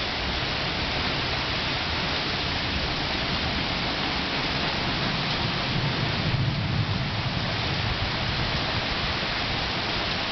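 Heavy rain falling steadily, with a low rumble of thunder swelling and fading about six to seven seconds in.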